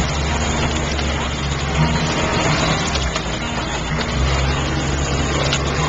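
Humvee engine and drivetrain running steadily while driving, heard from inside the cab: a low, even hum with road and cab noise over it.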